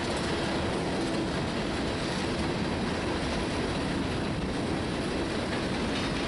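Freight train of coal hopper cars rolling past, with a steady noise of steel wheels running on the rails.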